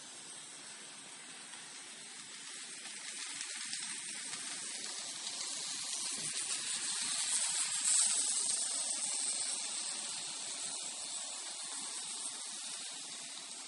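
Model freight train, led by Seaboard Air Line FT A/B diesel locomotives, running along the track. Its motor and wheels make a steady high hiss that grows louder as it approaches, peaks about eight seconds in as it passes closest, then fades.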